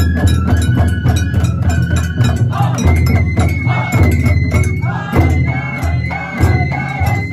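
Japanese festival hayashi music: rapid drum and metal-bell strokes over a deep drum beat, with a high held bamboo flute line. Voices join in from about two and a half seconds in.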